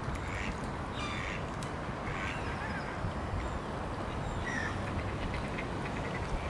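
Ducks and gulls on a pond calling in short, scattered cries, about four in all, over a steady low rumble of wind on the microphone.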